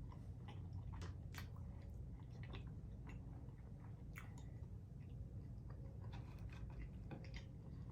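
A person chewing food close to the microphone, with small wet mouth clicks and smacks scattered irregularly throughout.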